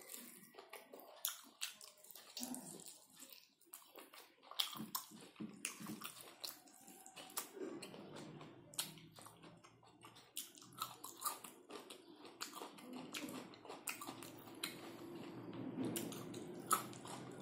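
Person chewing pork and rice eaten by hand, with frequent wet mouth clicks and smacks. A low steady hum comes in underneath about seven seconds in.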